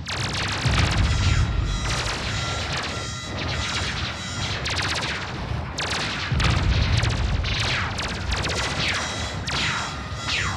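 Synthesized science-fiction battle sound effects: a rapid barrage of laser-gun shots, some with falling-pitch zaps, over booming explosions. The explosions swell louder about a second in and again around six seconds in.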